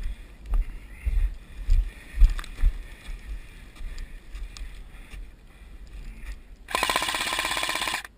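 Low thumps of footsteps and movement against a body-worn camera, then near the end a loud rapid run of evenly spaced clicks lasting about a second and a half, typical of an airsoft electric gun firing a full-auto burst close to the microphone.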